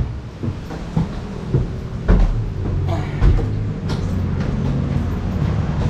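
Lift car running between floors: a few knocks and thumps, then a steady low hum from about two seconds in.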